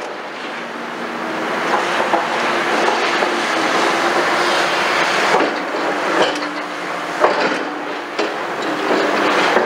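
Liebherr R960 excavator's diesel engine running steadily under load while its bucket works through concrete rubble, with several sharp knocks and clanks of steel on broken concrete, the loudest about seven seconds in.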